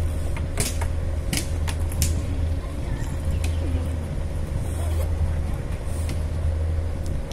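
A steady low engine rumble with a faint steady hum over it, and a few sharp clicks in the first few seconds.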